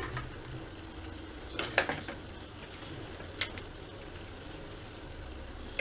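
Hands working soft milk peda dough on a steel plate, with a few light metallic clinks: a short cluster about one and a half seconds in and a single clink about three and a half seconds in.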